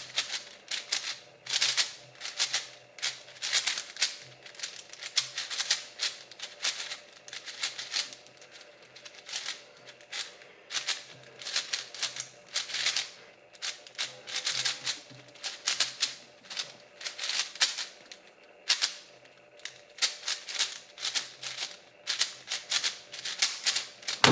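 Moyu Aochuang 5x5 speedcube being turned fast by hand during the 3x3 stage of a solve: bursts of rapid plastic clicking and clacking from the turning layers, with brief pauses between bursts.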